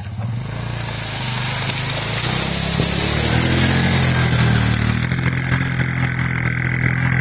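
Suzuki LT160 quad's single-cylinder engine revving hard under load as it climbs a steep dirt slope. The revs rise and fall, and it gets louder as it comes close.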